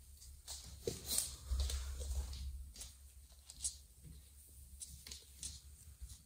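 Faint scuffling with scattered light clicks and taps as kittens move and paw about on a hard floor, with a brief patch of rustling and low rumble about a second or two in.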